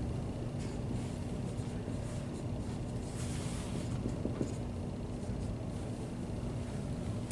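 Dry-erase marker writing on a whiteboard, faint scratchy strokes that are clearest about three to four seconds in, over a steady low room hum.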